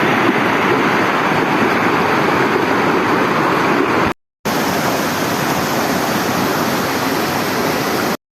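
Waterfall pouring: a loud, steady rush of falling water. It breaks off for a moment about four seconds in, then resumes.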